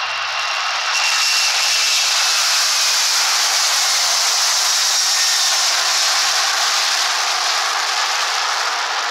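Jet airliner engines at takeoff power: a loud, steady rushing noise that grows about a second in, with a faint high whine that fades.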